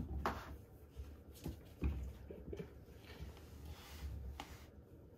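Faint rustling and a few soft scuffs, as from hands stroking kittens held on a lap.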